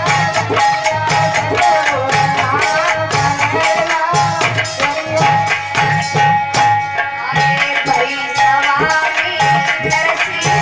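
Indian folk devotional music: hand drums play a steady beat under a melody line and a held drone tone, with a shaker or rattle.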